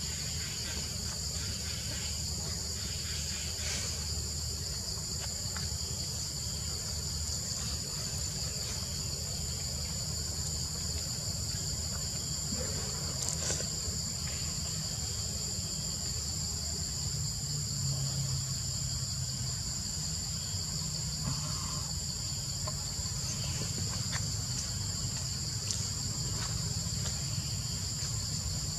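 Steady, high-pitched chorus of insects in the forest, two constant high tones that never break, over a low background rumble.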